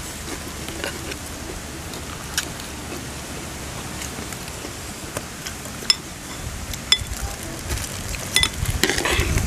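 Spoons clinking against plates and bowls, about five sharp clinks spread out, over a steady background hiss.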